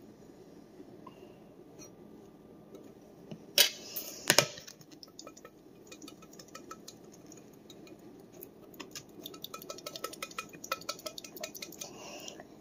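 A metal utensil knocking and clinking against a tin can while prying stuck canned ravioli out: two sharp knocks about four seconds in, then a run of quick light clinks through the second half.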